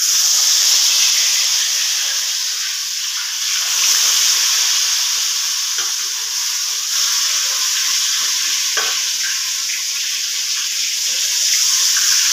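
Spice-marinated small fish sizzling in hot oil in a steel wok: a loud, steady frying hiss that starts suddenly as the first fish goes in.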